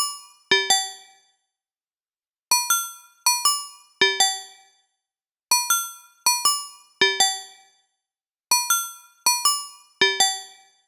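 Phone ringtone playing on a loop: a bell-like chime phrase of six quick, ringing notes in three pairs, ending on a low note. The phrase repeats about every three seconds, with a short silence between repeats.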